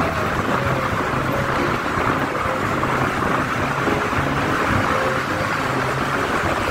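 Steady rush of wind and road noise from riding in moving highway traffic.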